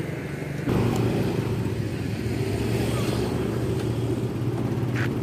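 Motorcycle engine running steadily amid street traffic, a steady low hum that gets suddenly louder a little under a second in.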